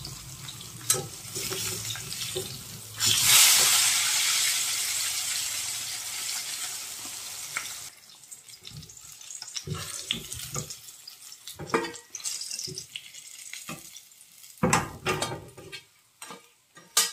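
Fish pieces frying in hot oil in a kadhai, sizzling. About three seconds in the sizzle jumps suddenly loud, then fades over several seconds. Later, scattered knocks and scrapes of a metal spatula come as the fried pieces are lifted out onto a steel plate.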